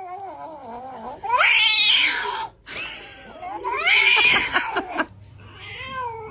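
Cat yowling: several long, wavering calls, the two loudest starting about a second in and again a little after three seconds.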